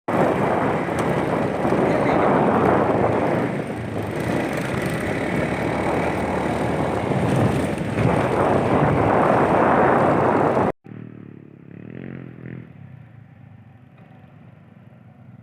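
A loud, steady rushing noise for about ten seconds that cuts off suddenly. After it a motorcycle engine runs, much quieter and fading.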